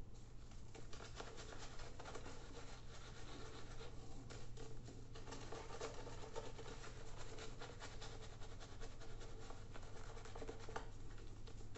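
Razorock Snowman 24 mm synthetic shaving brush lathering shaving soap over a stubbled face: continuous scratchy, swishing strokes, with a short pause about five seconds in.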